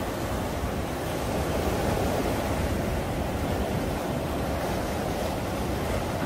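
Rough sea surf breaking and washing up a sandy beach in a steady rush.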